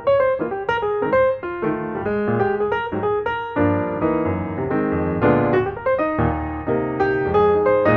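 Background piano music: a melody of quick single notes over chords, growing fuller about halfway through.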